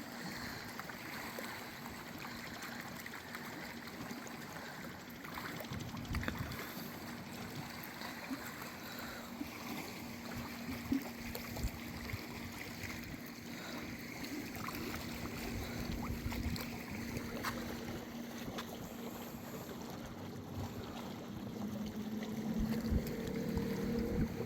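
A speedboat's engine humming faintly out on the lake, a steady low tone that grows louder near the end, over the steady wash of small waves.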